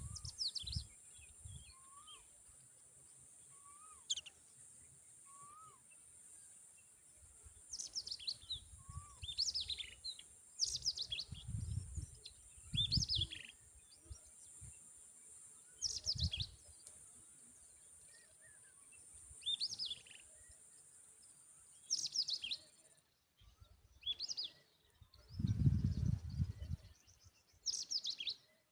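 Tailorbird chirping: short, high, downward-sweeping chirps repeated every one to three seconds. A steady high hiss stops about two-thirds of the way through, and several low rumbling thumps come between the chirps, the loudest near the end.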